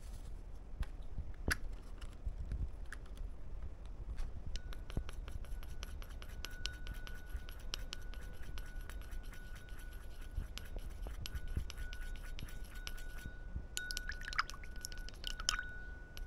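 Rapid scraping and ticking against glass, dense from about four seconds in, with a faint steady high whine alongside.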